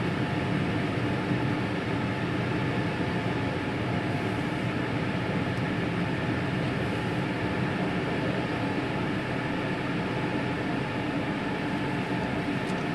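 Car wash blower dryers running with a steady whoosh and an even hum.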